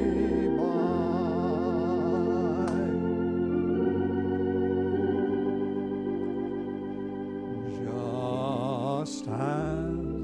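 Organ playing a slow hymn interlude: held chords under a wavering melody line.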